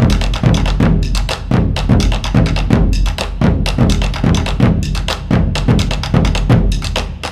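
Background music driven by drums and percussion: a fast, steady beat of sharp strokes over a deep bass drum.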